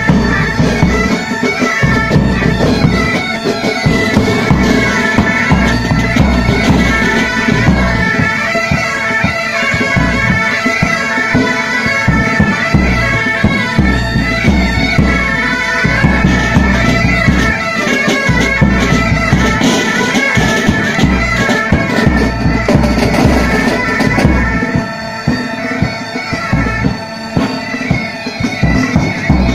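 Pipe band playing on the march: Highland bagpipes sound a melody over their steady drones, with bass and tenor drums beating time underneath.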